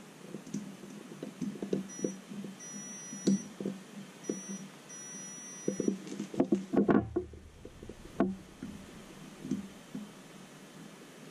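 Multimeter continuity beeper sounding in a series of short and longer high beeps as test probes are touched to points on a power-supply circuit board, with small taps and clicks of the probes throughout. About two-thirds of the way through there is a brief burst of louder handling noise.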